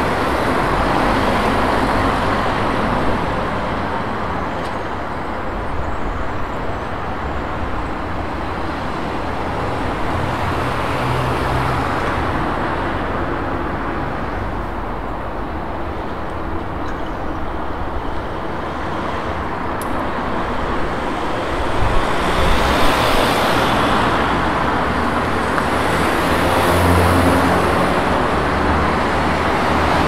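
Road traffic: a steady wash of passing cars with engine hum and tyre noise, swelling as vehicles pass close about two-thirds of the way through and again near the end.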